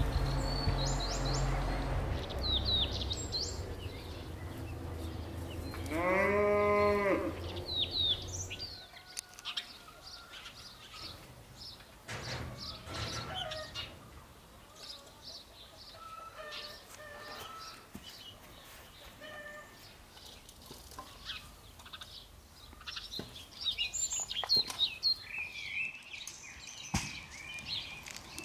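Small birds chirping throughout, with a single bleat about six seconds in that rises and falls over about a second and is the loudest sound. A low steady hum runs underneath and stops about nine seconds in.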